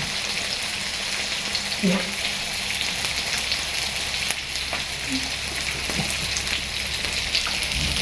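Food sizzling on a hot grill, a steady hiss with scattered small pops and crackles.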